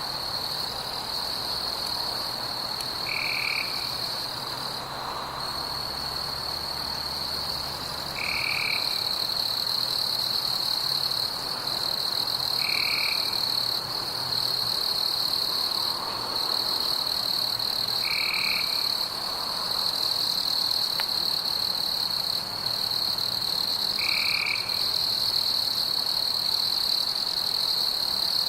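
Night chorus of frogs and insects: a steady, high, unbroken trill, with a short call repeating about every five seconds over a soft, continuous croaking background.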